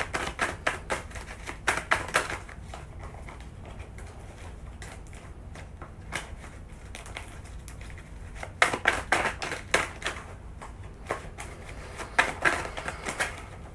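A tarot deck being shuffled by hand: quick runs of flapping card clicks in three bursts, at the start, about two-thirds of the way in, and near the end, with lighter clicking between.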